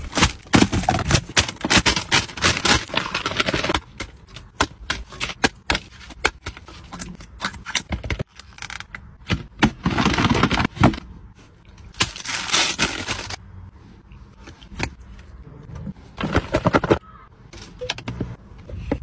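Paper fried-chicken bucket and takeaway packaging being handled, crinkling and rustling in quick irregular clicks and scrapes. Louder stretches come at the start and again about halfway through, with quieter handling between.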